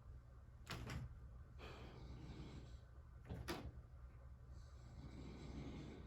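Soft, slow snoring breath near the end, with two sharp knocks, one about a second in and one about three and a half seconds in, and a fainter knock between them.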